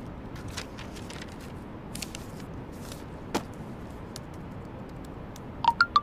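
Faint rustles and clicks of a plastic document folder and papers being handled, then near the end a quick three-note phone notification chime, the second note highest.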